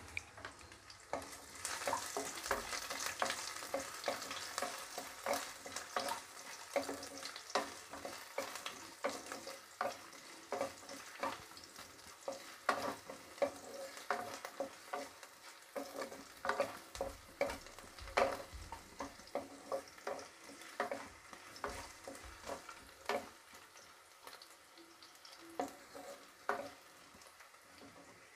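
Sliced garlic and ginger frying in hot oil in a non-stick kadai: a steady sizzle with frequent small pops and crackles, easing off somewhat after the first several seconds. A wooden spatula stirs the pieces in the pan.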